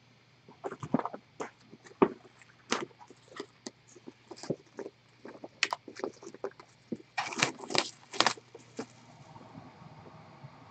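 Plastic model kit boxes and bagged plastic runners being rummaged through and opened by hand: a string of irregular clicks, taps and rustles, with a sharp knock about two seconds in and a louder, denser rustle about seven seconds in.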